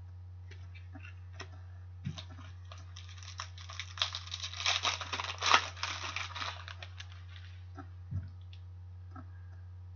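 Hockey trading cards being handled and shuffled through by hand: a quick run of rustling and clicking for several seconds, with a soft thump about two seconds in and another near the end as cards meet the table.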